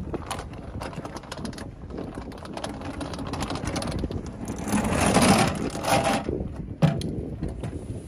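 Electric ride-on road sweeper running with a steady, rough mechanical noise. The noise swells louder for about a second and a half past the middle, and a single sharp knock comes near the end.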